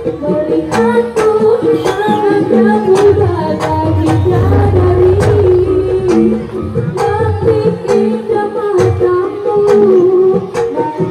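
Live Javanese jaranan music: singing over the ensemble, with sharp drum strokes and short, repeated low pitched strokes.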